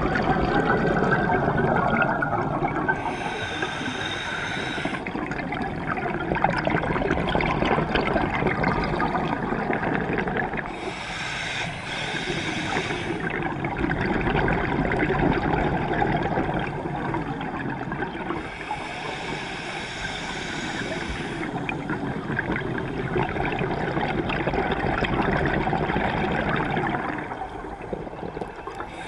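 Scuba breathing heard underwater: a hiss through the regulator about every eight seconds, with rushing, bubbling exhaust bubbles in between.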